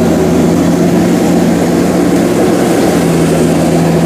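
Zoomlion EH100 Speedster rice combine harvester running steadily while cutting rice, a constant engine drone with an even hum.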